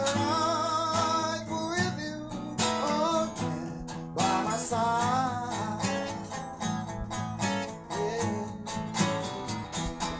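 Blues band playing an instrumental break: a lead line of bent, wavering notes over guitar accompaniment and a steady low line.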